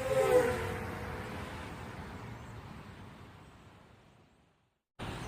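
A short intro sound: a pitched tone that bends downward in its first half-second, then fades away over about four seconds into silence, with outdoor background noise starting abruptly just before the end.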